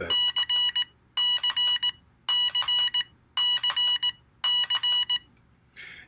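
Morse code side tone from a USB Morse keyboard adapter, beeping the letter C (dah-dit-dah-dit) five times in five evenly spaced groups at one steady pitch.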